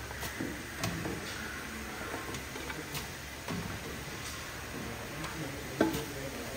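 Pickle cooking-and-mixing machine stirring ginger in hot oil: a steady background noise with scattered light clicks and knocks, one louder knock near the end.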